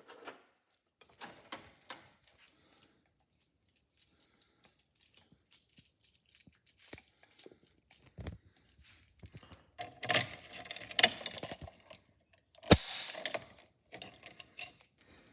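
Handling noise: irregular clicks, rattles and scrapes of objects being moved about, busiest near the end, with one sharp knock about three-quarters of the way through. No alarm is sounding.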